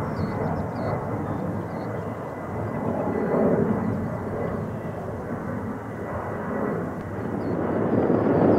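Jet airliner engines during takeoff climb-out: a steady, distant rush of engine noise that swells near the end.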